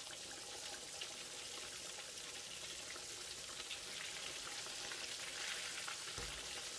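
Curry-powder-coated Spanish mackerel steaks deep-frying in hot oil in a wok: a steady dense sizzle and crackle of bubbling oil as a wire strainer stirs and turns the fish. A soft low thump comes near the end as a steak is flipped over.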